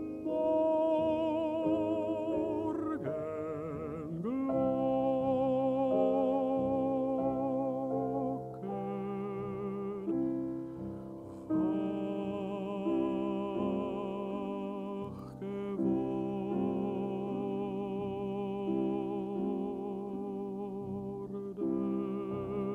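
A baritone singing a German art song with piano accompaniment, in long phrases with a wide vibrato, pausing briefly between phrases.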